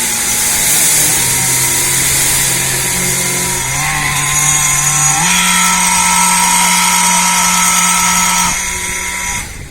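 A machine's engine or motor running loudly and steadily, its pitch stepping up about halfway through, then dropping off sharply near the end.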